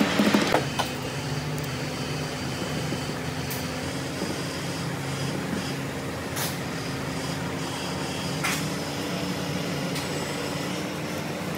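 Steady machine hum, with a few faint clicks.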